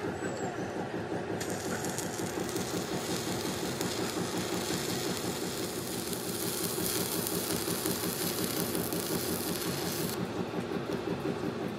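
Stick (shielded metal arc) welding on steel plate: the arc starts crackling and sizzling about a second and a half in and stops near the end. A steady rhythmic machine drone runs underneath.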